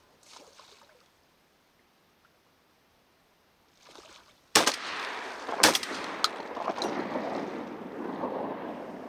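Two shotgun shots about a second apart, followed by a few seconds of rushing noise that fades away near the end.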